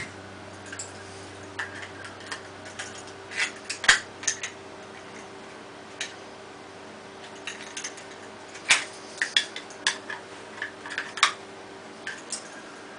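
Balisong butterfly knife and its kydex sheath being handled: scattered sharp clicks and clacks, the loudest about four seconds in and near nine seconds, with a quicker run of clicks between about nine and eleven seconds, over a steady low hum.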